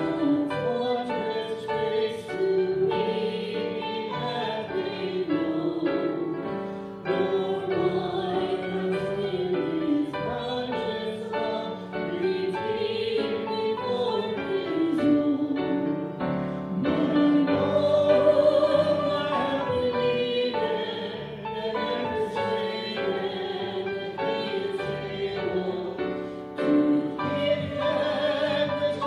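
A hymn sung with instrumental accompaniment: a sustained melodic vocal line that moves in pitch continuously over a steady backing.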